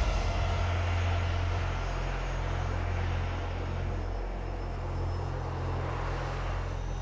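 Ilyushin Il-76's four turbofan engines heard at a distance as it climbs out after takeoff: a steady low rumble with a hiss above it, easing slightly as it moves away.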